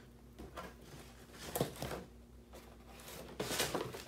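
Cardboard and plastic toy packaging being handled: a few short rustles and knocks.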